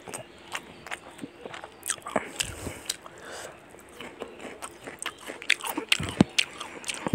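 Close-up mouth sounds of a person eating curry and rice: wet chewing with a quick, irregular run of sharp lip smacks.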